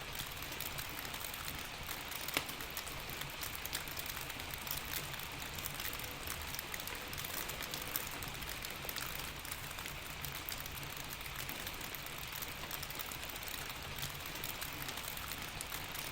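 Steady rain falling, with scattered sharp ticks and pops from a crackling fireplace; a louder pop comes about two seconds in and another about eight seconds in.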